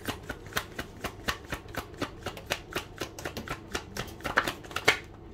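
A tarot deck being shuffled by hand: a quick run of crisp card snaps, about five or six a second, with two louder ones shortly before the shuffling stops.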